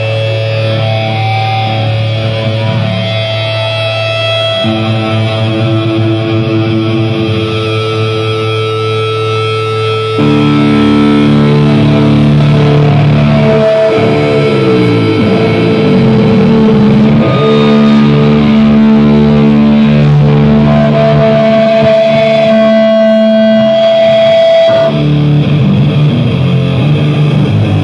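Live death metal band playing heavily distorted electric guitars through a concert PA, in long held chords. The music gets louder about ten seconds in, with sliding pitch bends a few seconds later.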